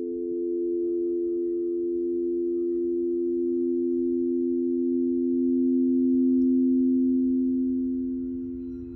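Quartz crystal singing bowls ringing together as several steady overlapping tones, kept sounding by a mallet worked around the rims. The sound swells about two-thirds of the way through and fades near the end.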